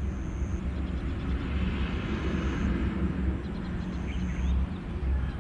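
Steady low outdoor rumble, swelling to a louder hiss about two to three seconds in, with a few faint short high chirps near the start and about four seconds in.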